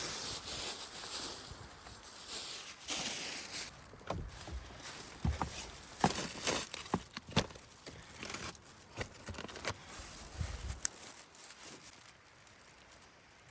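Gusty wind on the microphone, then scattered knocks, clicks and rustling from camp cooking gear being handled.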